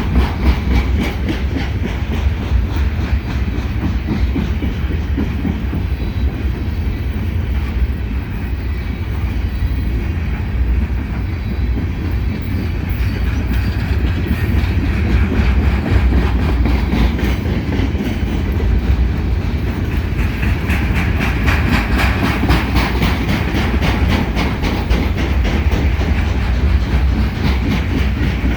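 Freight train cars rolling past close by: a steady heavy rumble with wheels clicking over the rail joints, and a brighter hiss building about two-thirds of the way through.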